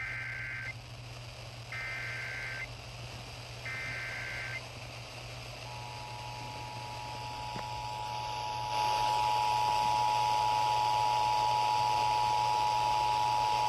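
Emergency Alert System broadcast heard over FM radio: three short bursts of warbling SAME header data tones, then the steady two-tone EAS attention signal. The two tones announce a severe thunderstorm warning. Radio hiss gets louder about nine seconds in, while the attention tone continues.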